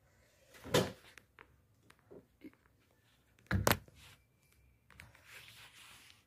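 Handling noise from the opened Daikin split aircon indoor unit while its sensor is being taken off: two sharp plastic clacks, about a second in and about three and a half seconds in, with a few faint clicks between them and a faint rustle near the end.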